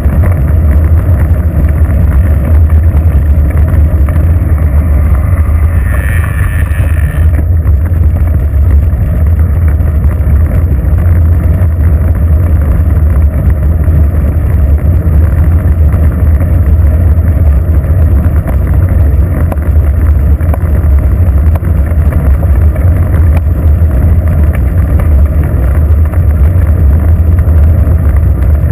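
Wind buffeting the microphone of a bicycle-mounted GoPro camera while riding, a loud steady low rumble. A short higher-pitched tone comes in about six seconds in and lasts a little over a second.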